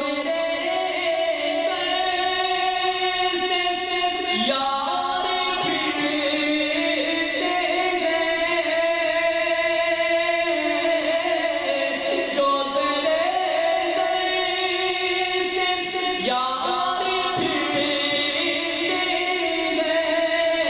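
A man singing a naat, an Urdu devotional song, into a microphone in long held, ornamented vocal lines, pausing briefly for breath a few times.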